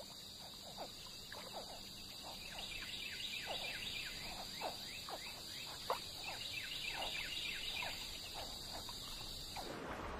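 Wetland ambience: a steady high insect drone with many short, falling chirping calls repeating over it, typical of a frog and insect chorus. The drone cuts off near the end.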